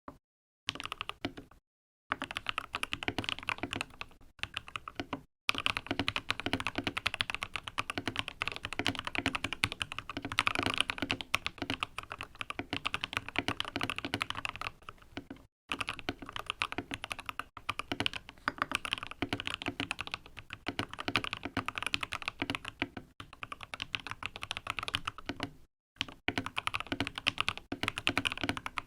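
Fast, continuous typing on an Optical GK61 mechanical keyboard with lubed and filmed Gateron Optical Yellow linear switches and YMDK Godspeed keycaps: a dense run of keystroke clacks, broken by a few short pauses.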